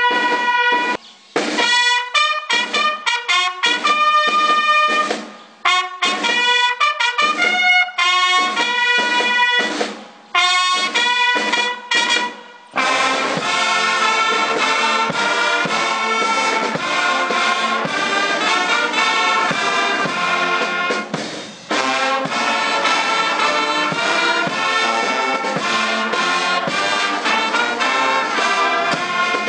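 Brass band playing: phrases of a few held notes broken by short gaps, then about thirteen seconds in the full band plays on continuously.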